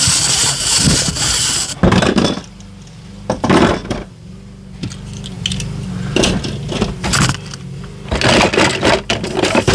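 Small plastic toys clattering and scraping against each other as a hand rummages through a cardboard box of them, in irregular bursts of clicks that are densest at the start and near the end. A steady low hum runs underneath.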